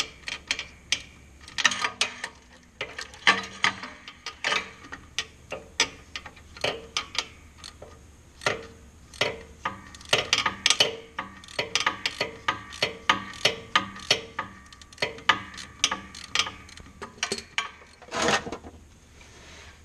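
Socket ratchet clicking in short runs of ticks, turning out the vent plug on a Hydro-Gear ZT-3100 hydrostatic transaxle. A brief louder scraping noise near the end.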